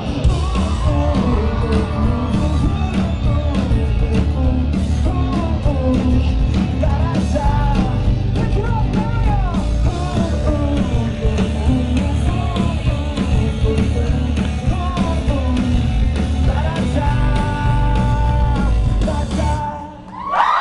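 Live pop-punk rock band playing loudly, with a lead singer over heavy drums, bass and guitars. Near the end the song finishes on held notes, stops, and the crowd starts cheering and screaming.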